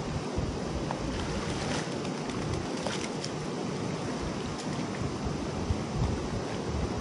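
Shallow river water running over a rock shelf, with wind rumbling on the microphone and a few light splashes from wading feet.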